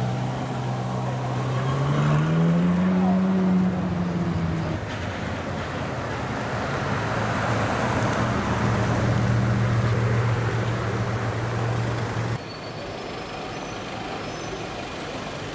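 A supercar engine in wet city traffic: rising in revs over the first few seconds, then running at a steady pitch. About twelve seconds in it cuts to quieter, even traffic noise.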